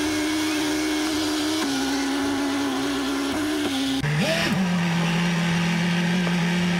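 Bayliner Capri's MerCruiser inboard-outboard engine running at low speed with a steady hum. About four seconds in it revs briefly, then settles to a lower, steady pitch.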